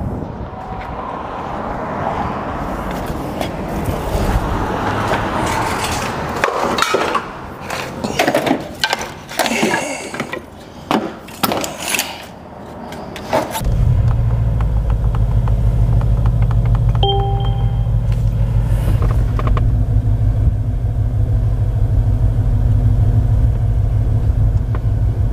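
Clunks and clicks, then a Mercedes-Maybach sedan's engine starts about halfway through and runs steadily at idle as the car rolls slowly out of the shop. A short electronic chime sounds a few seconds after it starts.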